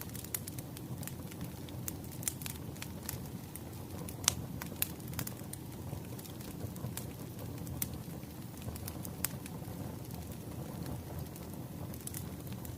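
Crackling wood fire: irregular sharp pops and snaps over a steady low rush, with one louder snap about four seconds in.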